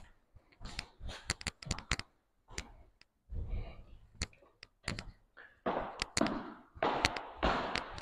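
Scattered light clicks and knocks with a few short stretches of rustling, from a person walking across tiled floors and past a wooden door.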